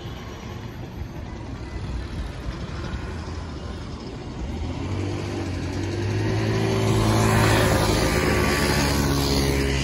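Motorcycle engine passing close by, its steady engine note growing louder from about halfway in and loudest near the end, over a constant low traffic rumble.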